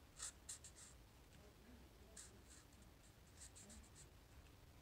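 Faint short strokes of a felt-tip marker on paper as a word is written, coming in a few small clusters.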